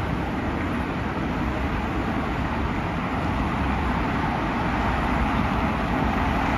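Steady low rumble of road traffic, with a departing electric commuter train fading into the distance under it.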